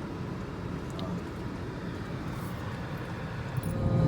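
Car cabin noise while driving: a steady low road-and-engine rumble, growing louder near the end.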